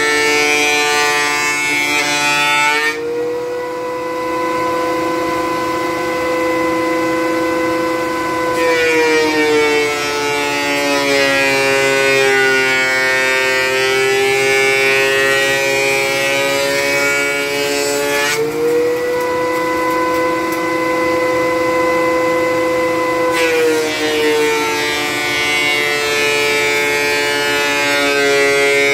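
Benchtop thickness planer running with a loud whine while planing a maple board in passes. While the board feeds through, a harsh cutting hiss joins the whine and the pitch sags slightly under the load; twice, for about five seconds (about 3 s in and about 18 s in), it runs unloaded between passes with a steadier, slightly higher whine.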